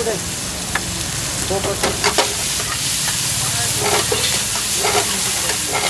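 Chopped onions sizzling in hot oil in a frying pan on a gas burner, with a metal spatula scraping and clinking against the pan every second or so as they are stirred.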